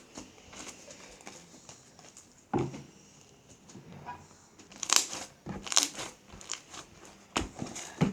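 Slime being squished and pulled by hand, giving a handful of short, sticky crackles and pops.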